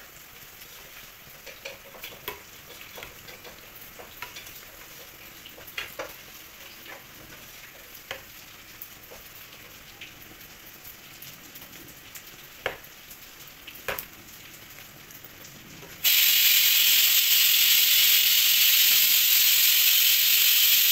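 Beef chicharon deep-frying in a pan of oil: a low sizzle with scattered sharp pops and crackles. About sixteen seconds in, a much louder, steady sizzle starts abruptly and continues.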